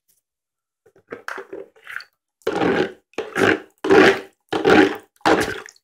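Water sloshing and splashing in a plastic basin around a spinning top: a few small splashes, then, about two seconds in, regular loud surges about three every two seconds.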